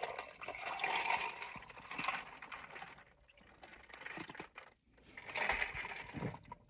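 Close-miked eating sounds: wet chewing and smacking mouth noises in irregular bursts, with quiet gaps between them.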